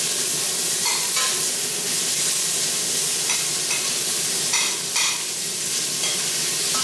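Garlic, onion and ginger sautéing in oil in a pan: a steady sizzle, with a utensil clinking and scraping against the pan a few times as it is stirred.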